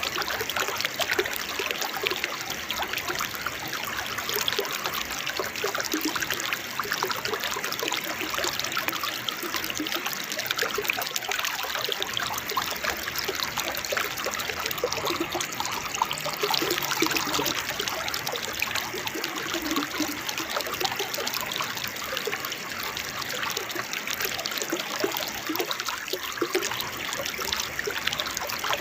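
Small waterfall's water babbling and splashing steadily: a dense, even patter of trickles and splashes with no pauses.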